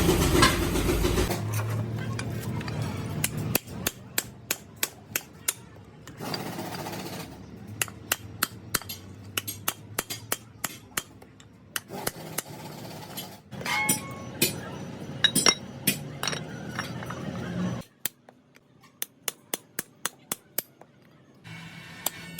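Metal hammer blows on a truck brake shoe during relining: sharp clinking strikes in runs of about two to three a second, with short pauses between runs. A louder noisy sound cuts off about a second in.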